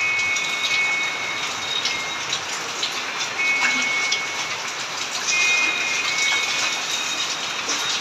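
Steady hiss of falling, splashing water, with a few short, high chirps over it.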